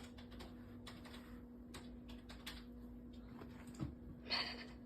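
Faint, irregular light clicks and taps over a steady low hum, with a short rustle near the end.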